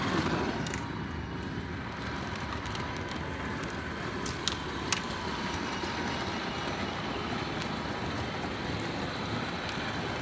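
Steady low rumble of a child's battery-powered ride-on toy Jeep, its plastic wheels rolling over a concrete driveway. Two sharp clicks come about four and a half seconds in.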